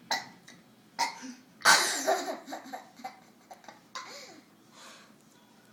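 Two short throaty bursts from a child trying to burp, then a loud burst of laughter about a second and a half in that trails off in quick short laughs.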